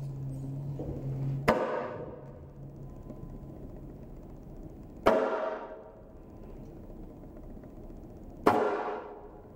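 Three sharp strikes on drum-kit percussion, about three and a half seconds apart, each ringing out briefly. A low steady drone sounds at the start and stops at the first strike.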